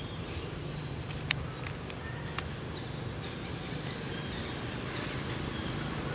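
Steady low background rumble with two sharp clicks, about a second and two and a half seconds in, the rumble slowly growing louder toward the end.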